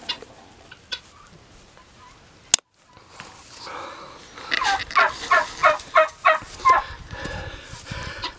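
Farm poultry calling, with a quick run of about seven falling calls a little past the middle. A single sharp click comes about two and a half seconds in.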